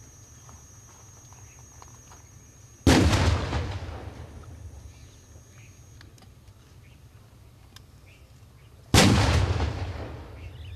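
Ceremonial field-gun salute: two loud cannon shots about six seconds apart, each dying away over a couple of seconds.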